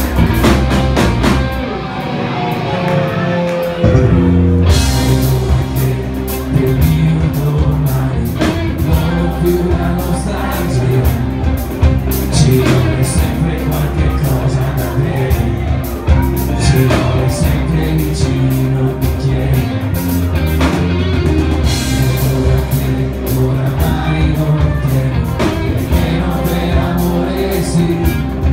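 Live rock band playing: electric guitar, bass guitar and drum kit, with a singer. After a quieter opening the drums and cymbals come in hard about four seconds in.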